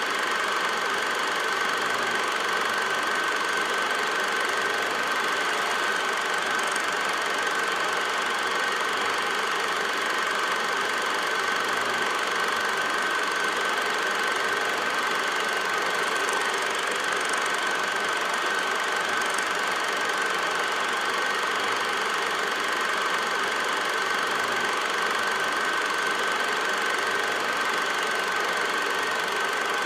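8mm film projector running steadily, a continuous mechanical running sound with a constant high whine.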